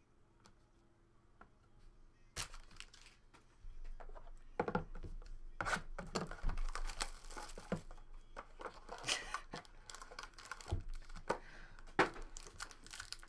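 Trading-card hobby box being torn open and its foil-wrapped pack handled and ripped, a run of tearing cardboard and crinkling foil that starts about two seconds in, with the sharpest rip near the end.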